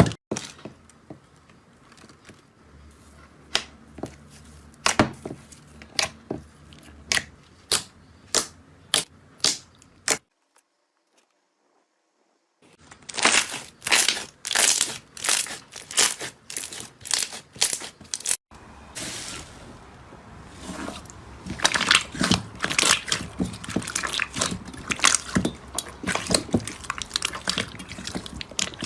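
Slime being squeezed and poked by hand, giving sharp clicking pops and crackling. The pops come one by one at first, then fall silent for a couple of seconds about ten seconds in, and come back as a dense, fast crackle.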